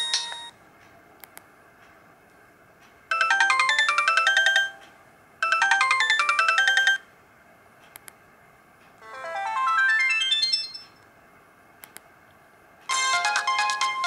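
Sony Ericsson J110i mobile phone playing short previews of its built-in polyphonic ringtones, one after another, each cut off after a second or two as the next in the list is selected. Four snippets are heard, one swelling in and out, with short clicks in the quiet gaps.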